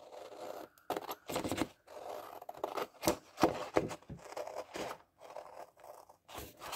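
Scissors snipping through a sheet of patterned paper-pad paper, in an uneven run of sharp cuts along a traced template line.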